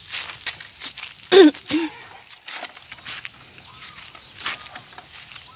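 Dry crackling and rustling of brittle moringa pods and stalks being handled on a plastic tarp, many small sharp clicks. A short throaty vocal sound in two parts, the loudest thing, comes about a second and a half in.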